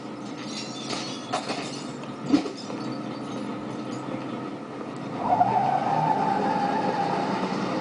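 Film soundtrack heard through a TV speaker: a car driving, with a few sharp knocks in the first seconds and a long tyre squeal starting about five seconds in.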